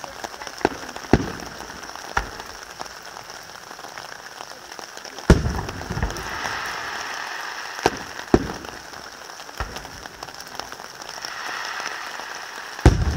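Fireworks display: aerial shells bursting with sharp bangs at uneven intervals, the loudest about five seconds in. Between them there is a crackling hiss that swells twice.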